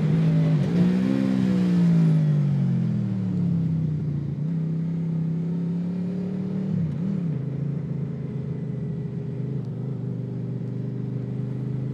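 Honda VFR's V4 engine through a loud exhaust that is patched with scrap metal and jubilee clips. The revs climb about half a second in and ease off over the next few seconds. After a brief dip around the middle, the engine holds a steady lower note.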